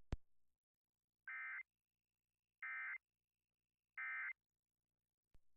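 Emergency Alert System end-of-message (EOM) data signal: three short bursts of the warbling digital data tone, about a second apart, closing the Amber Alert broadcast.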